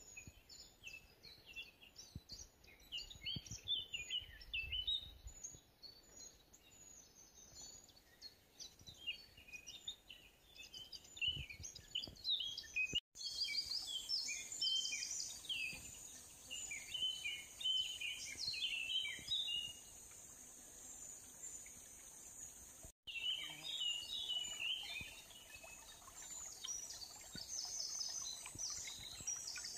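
Several songbirds chirping and singing, many short high calls overlapping. From a little before halfway on, a steady high insect drone runs beneath them. The sound drops out for an instant twice.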